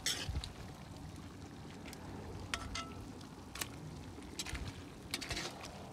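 Spoon stirring in a three-legged cast iron pot, with a few sharp clinks of the spoon against the pot over a low steady rumble.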